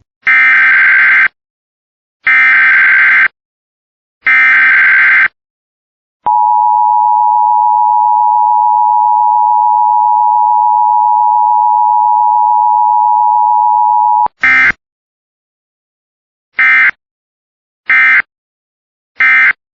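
Emergency Alert System test signal: three loud one-second data bursts of the digital header, then the steady two-tone attention signal held for about eight seconds, then four short data bursts.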